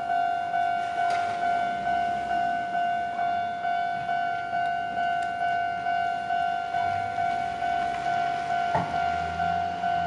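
Japanese railway level-crossing alarm ringing its electronic bell, a steady tone struck about twice a second. A single thump sounds a little before the end, with a low vehicle rumble after it.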